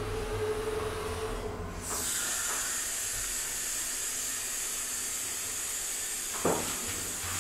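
A low hum stops just under two seconds in and a steady high-pitched hiss sets in, running on with a single knock near the end.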